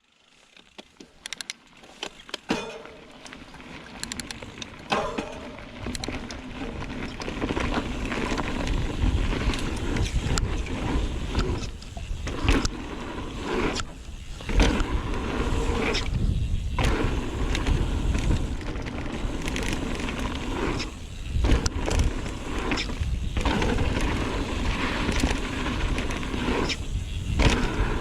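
Mountain bike riding a dirt trail: tyres rolling over dirt and roots, the bike rattling, and wind on the microphone. A few clicks come first, then the noise builds over the first several seconds as speed picks up, with short lulls now and then.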